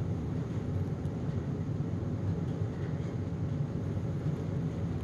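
Home heating system running: a steady low hum and rush with no clear breaks.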